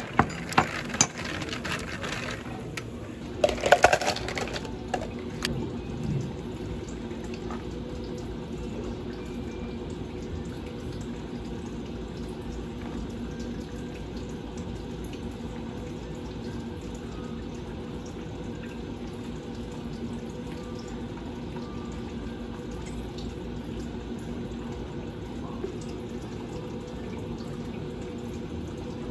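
Ice clinking and knocking in a glass as an iced drink is stirred, in several sharp clicks over the first few seconds. Then a steady background hum, with liquid being poured into a cup of ice.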